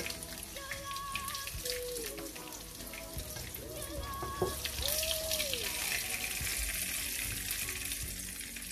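Pieces of chicken frying in hot oil in a non-stick frying pan, sizzling steadily as wooden spoons lift them out; the sizzle grows louder about halfway through.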